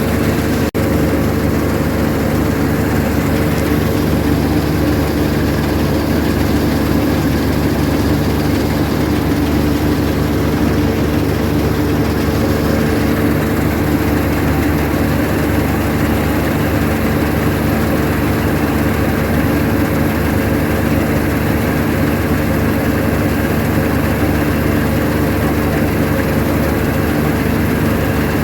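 Combine harvester's engine and machinery running steadily while harvesting, a constant heavy hum with several steady tones.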